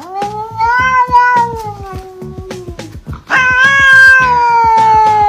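A domestic cat gives two long, drawn-out meows, each about three seconds, the second starting just past halfway and slowly falling in pitch. Background music with a steady beat plays underneath.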